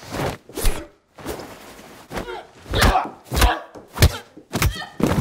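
Fight scene impacts: a rapid series of about nine sharp punch and body-blow thuds.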